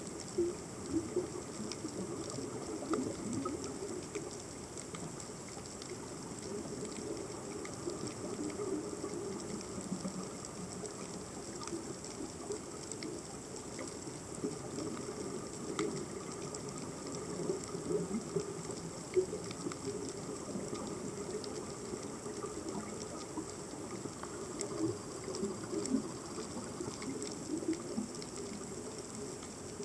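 Underwater ambience picked up by a submerged camera: a continuous low burbling of moving water, scattered faint clicks and a few sharper pops, over a steady high hiss.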